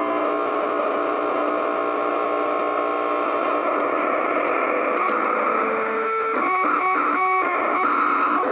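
ProCo RAT and Marshall Guv'nor distortion pedals self-oscillating through a Marshall mini-stack amp, a dense humming drone of several steady tones with the guitar strings muted. About six seconds in, the drone turns into a rapid stuttering, pulsing oscillation as a pedal knob is turned.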